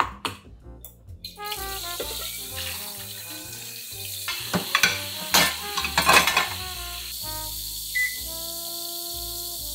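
Kitchen tap running into a stainless steel sink, starting about a second in, with a few sharp clinks of dishes being rinsed around the middle.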